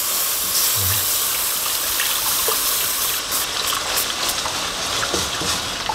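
Beef stock gushing from a plastic tub into a hot pan of flour mixture, hissing as it hits. From about three seconds in, a wire whisk clicks against the pan as it stirs.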